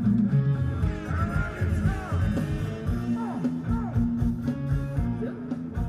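Live band music for Thai ramwong dancing, with guitar over a steady drum beat.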